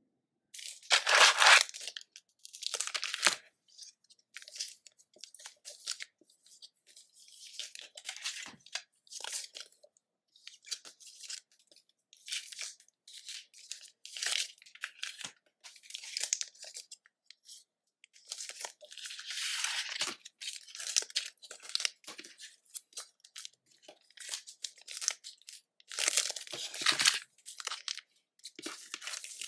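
Pokémon booster packs being handled and opened: foil wrappers crinkling and tearing in a string of short rustling bursts. The loudest burst comes about a second in.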